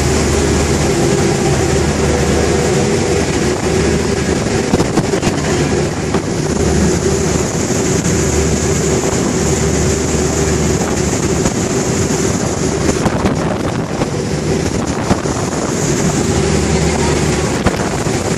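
Passenger ferry under way at speed: its engines drone steadily, mixed with wind buffeting the microphone and the rush of water from the wake.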